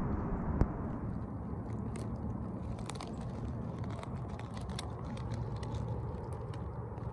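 Faint crackling and rustling of dry conifer needles and twigs on the forest floor, with a sharp click about half a second in, over a steady low rumble.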